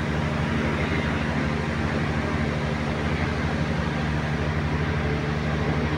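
Steady low mechanical hum, with faint high puppy whimpers about a second in and again near three seconds.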